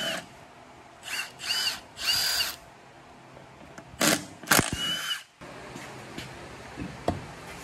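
Cordless Milwaukee Fuel impact wrench spinning lug nuts off a UTV wheel in five short bursts, three close together and then two more, each with a high motor whine. A light knock near the end as the wheel comes off the hub.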